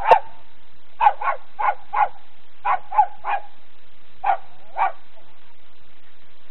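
A West Highland white terrier barking, about ten short sharp barks in quick uneven clusters, stopping about five seconds in.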